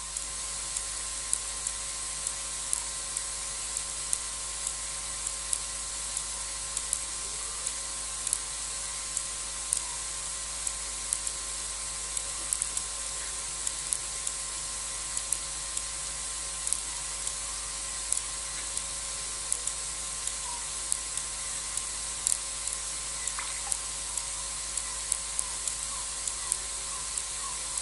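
Steady high-pitched hiss of a night insect chorus in the bush, with frequent short, sharp ticks throughout.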